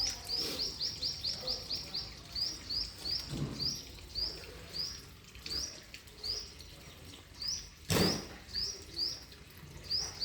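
A small bird calling: short rising chirps repeated, first in a quick run, then spaced out. A single sharp knock about eight seconds in.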